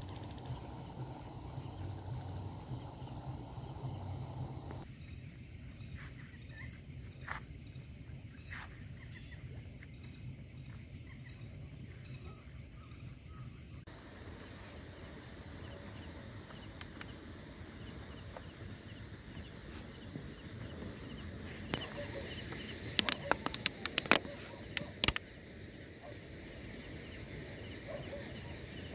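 Night insects and other small creatures keep up a steady background of rapid, high-pitched chirping. A burst of sharp clicks comes about 23 to 25 seconds in.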